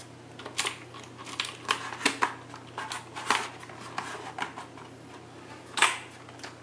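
A USB cable being routed along the underside of a plastic keyboard: irregular light clicks and knocks as the cable is pressed in and the keyboard is handled, over a low steady hum.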